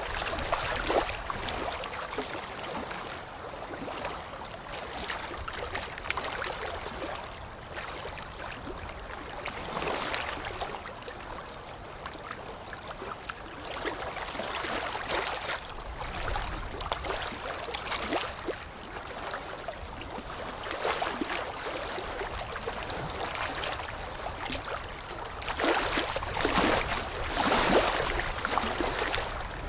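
Running water, a steady rush of noise with irregular louder surges, strongest near the end.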